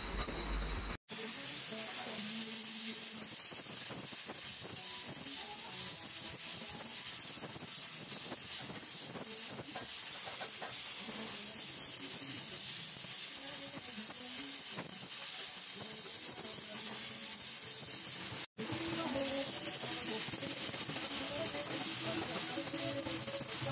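Gas welding torch flame hissing steadily as it heats an aluminium crankcase for welding with filler rod. The hiss cuts out briefly about a second in and again near the end, and is a little louder after the second break.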